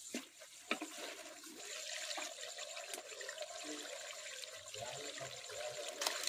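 Chicken masala curry cooking in a karahi, with a steady wet sizzling and bubbling and a sharp clink a little under a second in.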